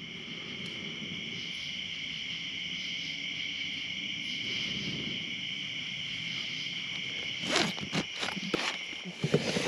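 Night insect chorus: a steady, high-pitched drone. About three-quarters of the way through, a run of sharp clicks and rustles from tent fabric and its zipper being handled rises over it.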